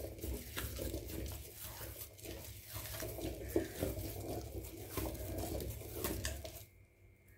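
Heavy stone pestle of a traditional Kerala aattukallu stone grinder being turned by hand in its stone basin, grinding wet white batter: a continuous low rumble with scraping, small knocks and wet squelches. It stops suddenly near the end.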